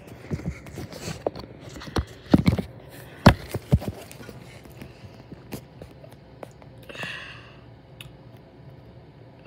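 Handling noise on the recording phone's microphone as it is moved about: a run of knocks and rubbing thumps in the first four seconds, the loudest about three seconds in, then quieter.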